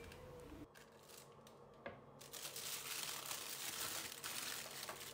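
Disposable plastic piping bag crinkling and rustling as it is handled, starting about two seconds in, after a single light click.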